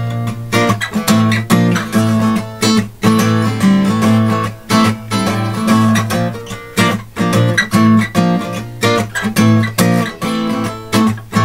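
Acoustic guitar strummed in a steady rhythm of full chords, with no singing: an instrumental break between verses of a folk song.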